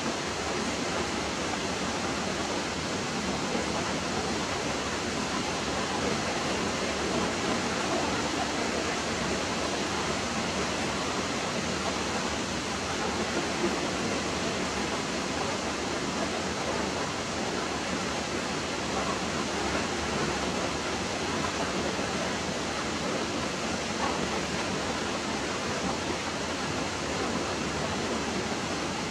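Steady, even hiss-like rushing noise that does not change.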